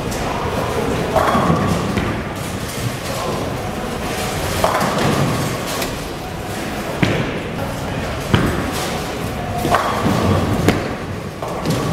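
Bowling alley din: a steady rumble of balls rolling down the lanes, broken about six times by sharp clatters of balls and pins being struck, each with a short ring, and voices in the background.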